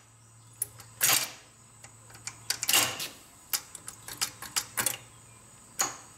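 Clicks and clunks of metal parts inside a John Deere 4430 Quad Range transmission as its shift forks, collars and gears are moved by hand through the ranges. There are scattered sharp clicks, with two louder clunks about a second and nearly three seconds in.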